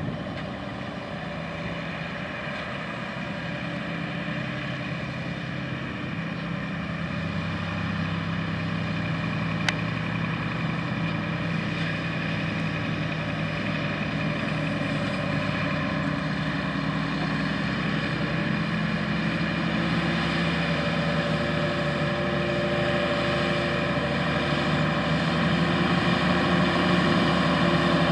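New Holland T9.450 four-wheel-drive tractor's diesel engine running steadily as it pulls an anhydrous ammonia applicator toolbar through the field, growing louder as the tractor comes closer. A single short click a little under ten seconds in.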